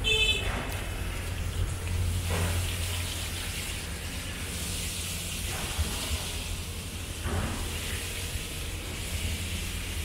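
City street traffic: vehicles pass every couple of seconds with a swish of tyres, over a steady low rumble of wind on the microphone. A brief high whine sounds right at the start.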